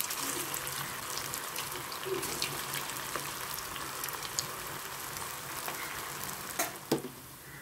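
Soya-chunk balls deep-frying in hot oil in a kadai, just dropped in: a steady sizzling hiss with fine crackles. A couple of sharp knocks about seven seconds in.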